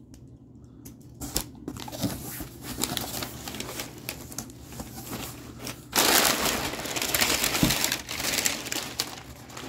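Crumpled brown packing paper and plastic wrapping being pulled and crinkled as a cardboard box is emptied by hand, a dense rustling crackle that grows much louder and busier for a couple of seconds past the middle.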